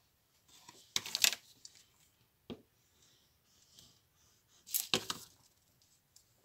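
Cardstock and patterned paper being handled and pressed on a craft mat: two short spells of papery scraping and rustling, about a second in and again near five seconds, with a light tap between them.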